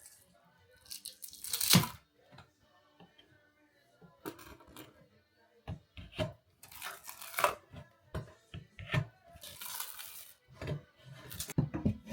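Rough tearing sounds in four separate bursts a few seconds apart, the first the loudest, with small clicks and knocks between them: material being torn or pulled loose by hand.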